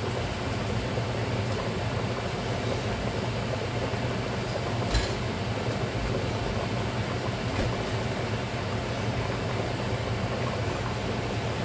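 Steady whir of a kitchen vent fan with a low hum, over a pot of pasta water at a rolling boil, with one brief knock about five seconds in.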